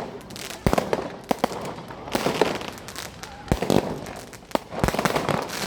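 Fireworks going off: a string of sharp bangs at uneven intervals, with bursts of crackling between them.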